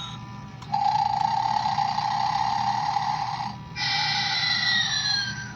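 Gemmy Snoring Santa animated toy playing its recorded snore through its small speaker: a long raspy snore starting about a second in, then a whistle that falls in pitch.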